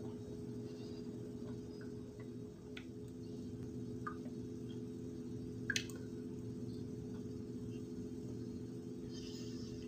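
Mouth sounds of dry cornstarch being chewed: soft squishy noises and a few faint clicks, the sharpest a little past the middle, over a steady low hum.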